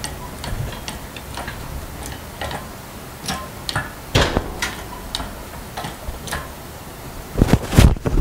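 Irregular light metallic clicks and knocks as a heavy air compressor is shifted into place on its steel frame, with a few louder clunks near the end.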